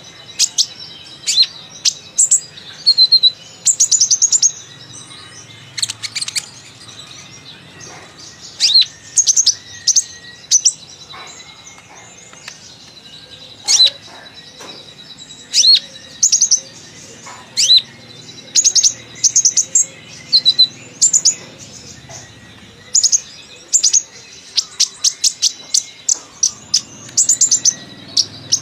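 Olive-backed sunbird (kolibri ninja) singing: quick runs of short, sharp, high chirps and twitters, repeated in bursts with brief pauses between them, getting faster and denser near the end.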